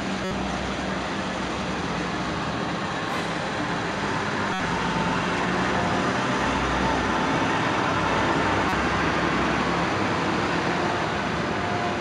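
Steady heavy rain pouring onto a street, with a city bus's engine running below as it pulls past near the start.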